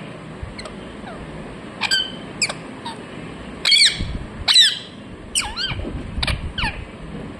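Indian ringneck parrot giving a series of short, sharp chirps and squawks, about eight in quick succession, the loudest two in the middle.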